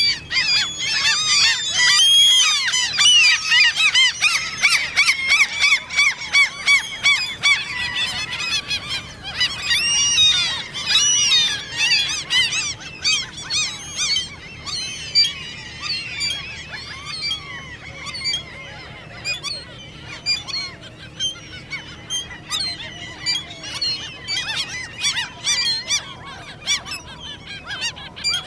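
Common gulls giving high, squeaky begging calls in rapid, overlapping series, part of their courtship display; the calling is dense at first and thins to shorter, scattered calls in the second half.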